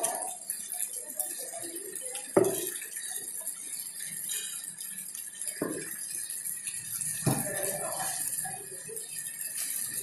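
A large knife striking a thick wooden chopping block as tuna is cut, three sharp knocks about two and a half, five and a half and seven seconds in, over steady background noise with faint clatter.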